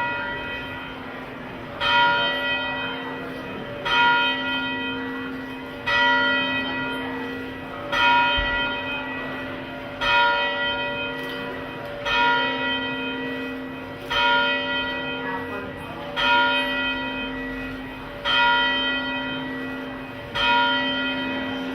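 A single church bell tolling, struck at the same pitch about once every two seconds, each stroke ringing on into the next.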